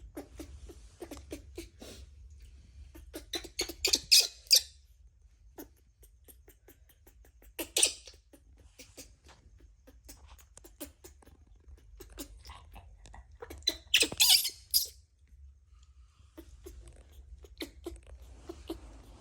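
Baby monkey squeaking and squealing in short high-pitched bursts, loudest about four, eight and fourteen seconds in, amid many small clicks and taps.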